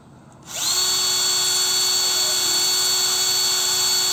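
Bosch Professional cordless drill starting up about half a second in, whirring briefly up to speed, then running at a steady pitch as its bit bores through the base of an unglazed terracotta pot.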